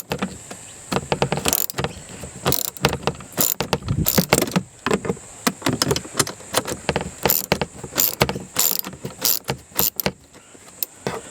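A hand tool, most likely a ratchet or socket wrench, clicking and knocking irregularly as it undoes a mounting nut under a car's dashboard.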